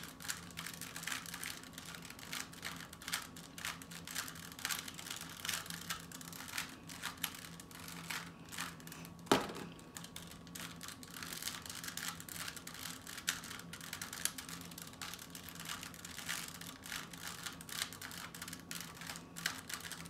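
3x3 Rubik's Cube being turned quickly by hand: a rapid, irregular run of plastic clicks and clacks as its layers rotate, with one louder clack about nine seconds in. A faint steady hum sits underneath.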